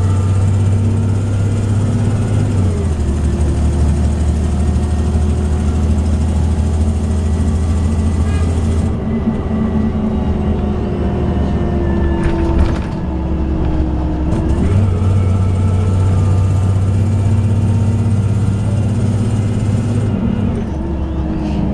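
A 2004 Orion VII CNG transit bus running: a steady low engine drone with whining tones that slide up and down as its speed changes, and the drone steps in pitch a few times.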